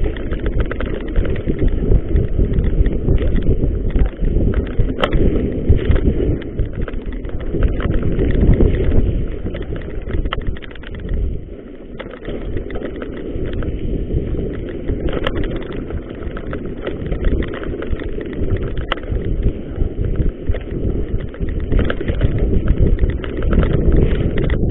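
Mountain bike ridden fast down a rough gravel and dirt trail: tyres rolling over stones and the bike rattling, with many sharp clicks and knocks over heavy wind rush on the microphone.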